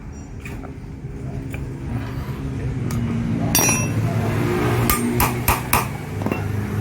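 Hammer strikes on the metal of a car's viscous fan clutch: a single ringing metallic strike about three and a half seconds in, then a quick run of four strikes a second later and one lighter tap. Under them is a steady low hum that grows louder.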